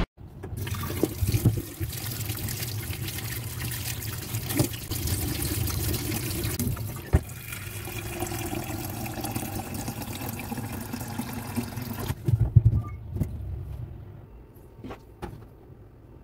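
Tap water running from a kitchen faucet into a metal pot in a stainless-steel sink, a steady rush. About twelve seconds in the water stops, a few knocks follow as the pot is handled, then some light clinks.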